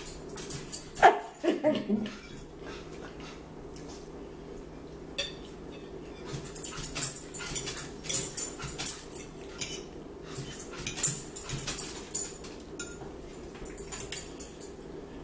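A dog gives one short whimper that falls in pitch about a second in. After that come many small clicks and scrapes of forks on plates, with chewing.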